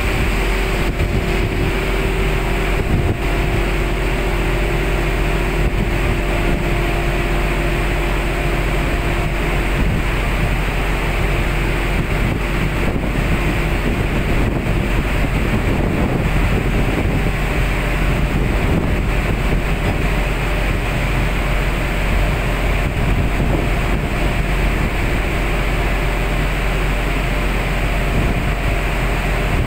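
Wind buffeting the microphone over the steady drone of a boat's engine, with the wash of the sea beneath.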